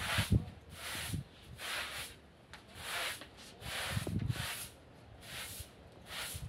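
A broom sweeping a tiled floor: a run of rough swishing strokes, roughly one to two a second, with a few soft thumps.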